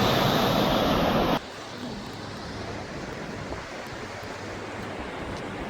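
Loud steady rushing noise of the outdoors that cuts off abruptly a little over a second in, giving way to a quieter steady hiss.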